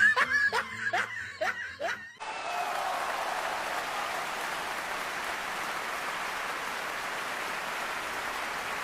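A laugh track: about two seconds of laughter in short repeated bursts, then steady applause.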